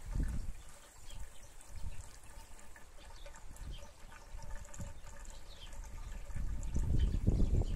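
Pond water trickling and lapping in a koi pond, with koi milling at the surface. A low rumble grows louder near the end.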